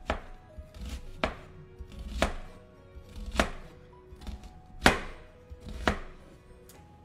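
Chef's knife making about six vertical cuts into a peeled onion half, each stroke ending in a crisp knock of the blade on a plastic cutting board, roughly one a second.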